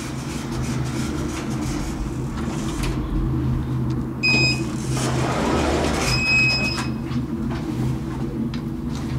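PW Hiss & El elevator: a short electronic beep as the call button is pressed. About a second later the doors slide open and a second, longer beep sounds, all over a steady low hum.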